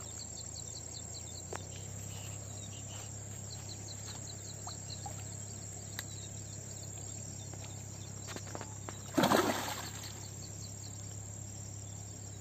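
Insects droning with short repeated chirp trains. About nine seconds in, one brief loud splash as the hooked mrigal carp thrashes at the surface.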